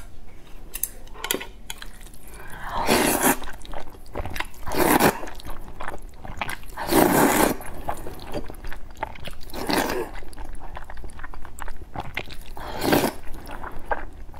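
A person slurping instant noodles off chopsticks: five loud, wet sucking pulls at intervals of two to three seconds, with small chewing clicks between them.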